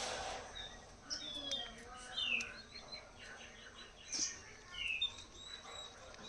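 A small bird chirping repeatedly in short, quick sliding notes, with a few soft clicks in between.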